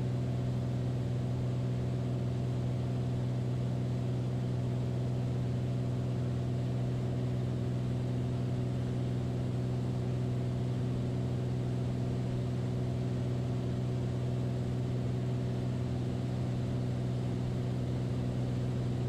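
Beechcraft Bonanza's single piston engine and propeller droning steadily in level flight, heard from inside the cockpit.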